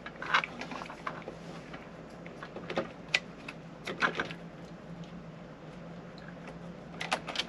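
Scattered clicks and knocks of cables and plastic connectors being handled behind a car head unit while trying to plug in the antenna lead, over a faint steady hum. The clicks cluster near the end.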